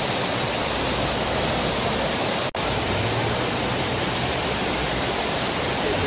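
Steady, loud rush of a snowmelt mountain waterfall and its stream cascading over rocks. A momentary dropout to silence comes about halfway through.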